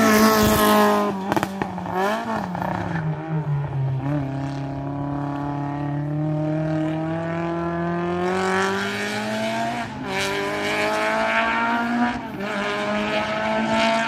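Race car engine under hard driving: the revs fall about two seconds in, then climb steadily, dropping back suddenly about ten and twelve seconds in as it shifts up.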